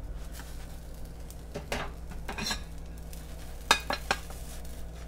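A few light clinks and knocks of a frying pan and a plate being handled on a stovetop, with a low steady hum underneath.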